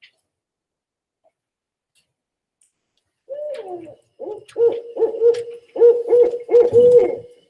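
Barred owl call played from a recording: after a silent start, a series of hoots begins about three seconds in, ending with a longer hoot that falls in pitch.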